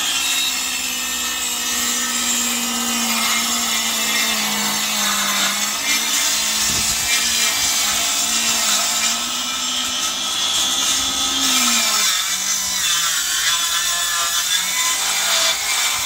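Handheld circular saw running continuously as it cuts through a sheet of MDF. The motor's pitch dips about twelve seconds in and stays lower after that.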